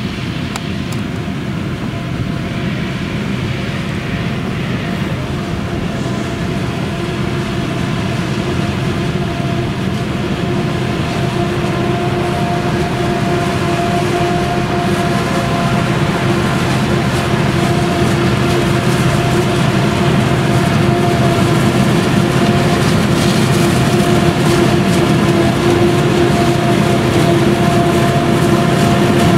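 Claas Jaguar 970 forage harvester's MAN V8 engine running under load while chopping maize, with a tractor hauling the chopper trailer alongside. A steady whine rides over the engine rumble, and the whole grows steadily louder as the machines approach.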